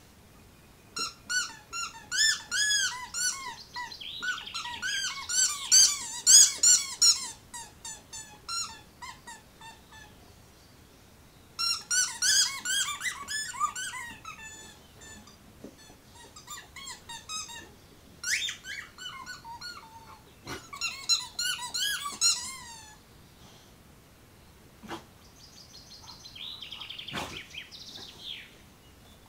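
A boxer dog chewing a rubber squeaky toy, giving fast runs of short squeaks that rise and fall in pitch. The squeaking comes in several bursts with short pauses between them.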